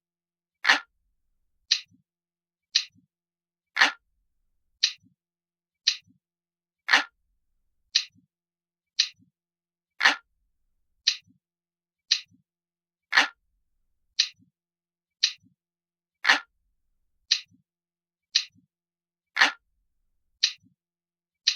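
Looped clock-ticking sound effect, steady at about one tick a second, with every third tick deeper and louder.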